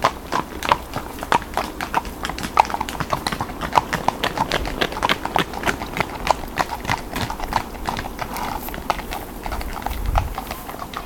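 Hooves of several horses clip-clopping at a walk on a paved path, a quick uneven run of hoofbeats that grows fainter near the end as the horses move away.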